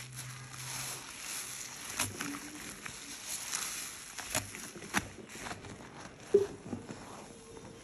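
Wet sponge loaded with white cleaning paste being squeezed and pressed into foamy soapy water: irregular squelching and crackling of suds, with many small wet pops. The sharpest pop comes about six seconds in.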